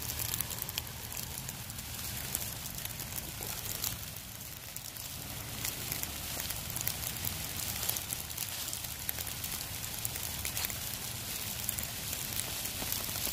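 Steady rain pattering, many small drop ticks over an even hiss, with a low steady rumble underneath.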